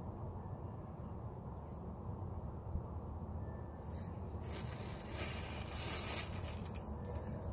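Steady low outdoor background rumble. A little past halfway comes a hissing rush lasting under two seconds.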